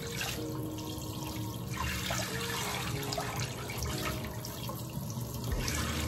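Water running steadily from a tap into a sink.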